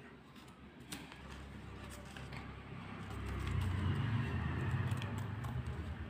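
Paper rustling and crinkling with a few small clicks as a sheet of origami paper is creased and folded by hand. A low rumble swells about halfway through and is the loudest sound, easing off near the end.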